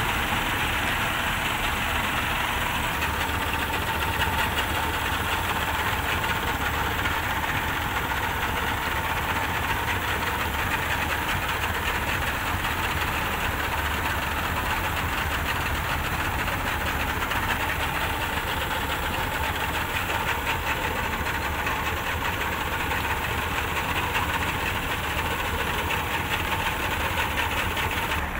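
Twin freshly overhauled two-stroke outboard motors running at a steady idle with their cowlings off, a dense, even mechanical drone; they smoke heavily because the rebuilt engines still hold a lot of oil.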